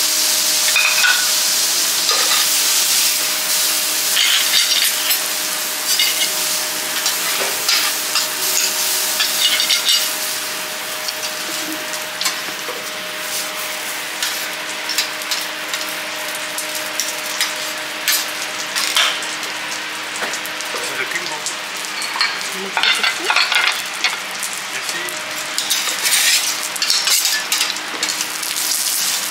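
Foie gras slice sizzling in its rendered fat on a hot steel teppanyaki griddle, louder over the first ten seconds or so. A metal spatula scrapes and clicks against the steel plate now and then.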